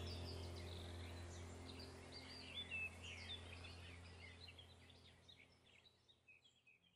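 Many small birds chirping and singing over a low steady hum, the whole fading out gradually toward silence.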